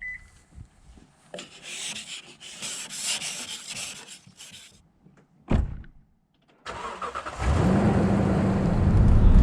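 Outboard motor starting about seven seconds in and settling into a steady run, the loudest sound here. Before it comes a stretch of hissing noise and a single thump.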